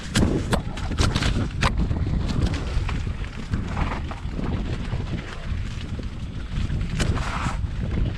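Wind buffeting the microphone of a camera riding a mountain bike down a rutted dirt trail. Sharp knocks and rattles sound as the bike hits bumps: a cluster of them in the first second and a half, and another about seven seconds in.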